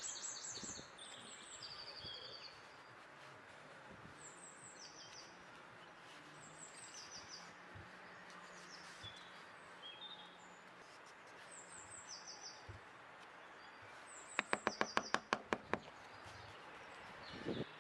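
Quiet outdoor ambience with small birds chirping: short high notes in little groups every second or two. Near the end comes a quick run of about ten sharp knocks.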